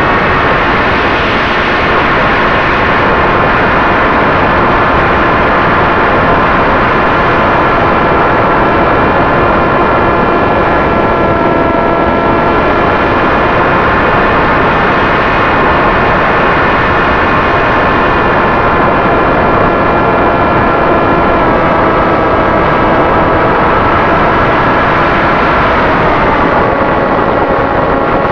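Electric motor and propeller of a Flitetest Spear flying wing, heard from its onboard camera: a steady whine over heavy wind rush, its pitch stepping down twice in the last few seconds as the throttle eases.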